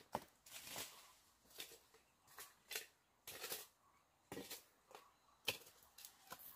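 Faint, irregular light clicks and rustles, a few each second, with a sharper click about five and a half seconds in.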